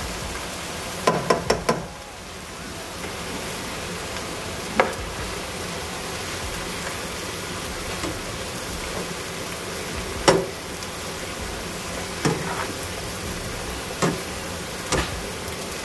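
Diced onions, bell peppers and cilantro sizzling steadily as they sauté in oil in a pan, with knocks from stirring them: a quick run of four about a second in, then single knocks every couple of seconds.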